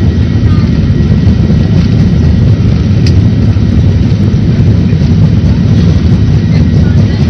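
Loud, steady rumble of a Boeing 737-800's CFM56-7B jet engines and airflow at high thrust during takeoff, heard inside the passenger cabin, with a faint click about three seconds in.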